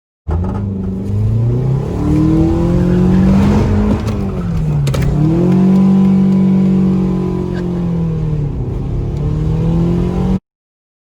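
Car engine revving up and down repeatedly under load, the pitch climbing, dropping sharply about five seconds in, then climbing and holding before easing off. It starts and stops abruptly.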